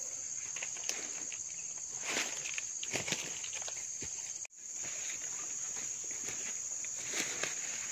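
Insects droning steadily in a high-pitched band, dropping out for an instant about halfway through. A few brief rustles and crackles of leaf litter, around the second and third seconds and again near the end.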